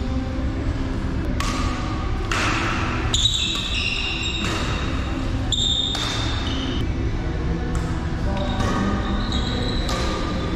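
Badminton doubles rally on an indoor court: court shoes squeak on the floor again and again, and rackets strike the shuttlecock with short sharp pops, over a steady low background hum in a large hall.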